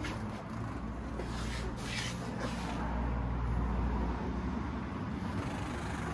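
The 1301cc V-twin of a KTM 1290 Super Adventure S running steadily at idle, a low even engine note, with a brief hiss about two seconds in.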